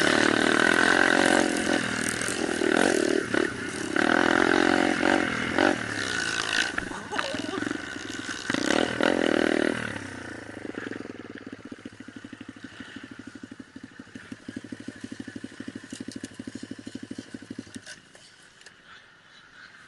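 Small off-road motorcycle engines running and revving for about ten seconds, then a lone engine runs more quietly with a fast, even putter that stops about two seconds before the end.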